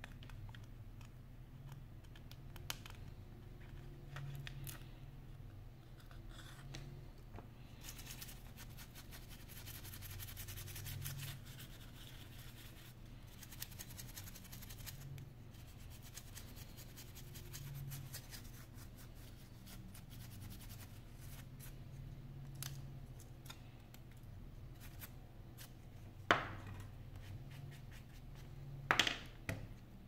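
Small hand tools scraping, tapping and clicking against an iPhone 5's metal frame and internal parts during disassembly. The scratching is densest about a third of the way in, and two sharp knocks near the end are the loudest sounds.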